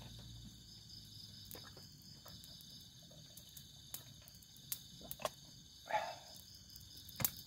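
Steady high-pitched chorus of night insects such as crickets, with a few sharp clicks and a short knock from a plastic water bottle being handled and drunk from.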